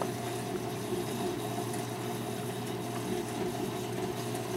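Steady hum of saltwater reef aquarium equipment with running-water noise: a pump circulating water through the tank.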